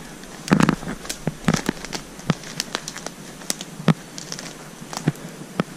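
Footsteps through dry pine needles and fallen sticks, with irregular sharp twig snaps and cracks, a cluster of them about half a second in.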